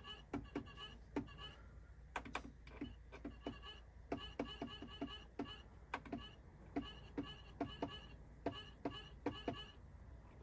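Electronic house groove from groove boxes played over speakers and picked up through the room: a quick pattern of sharp, clicky drum-machine hits with short repeated high synth notes, over a steady low hum.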